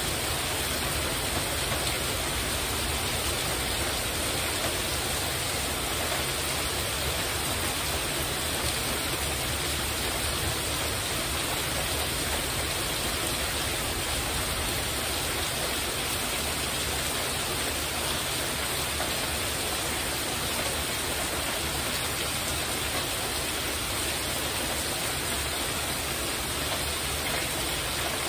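Heavy rain falling steadily on a porch roof: a dense, even hiss with no let-up.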